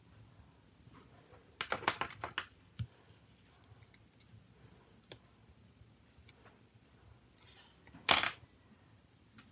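Small hard plastic clicks and taps from handling a Nokia C2-01's plastic housing frame. There is a quick run of clicks about two seconds in, a few single ticks after it, and one louder sharp click near the end.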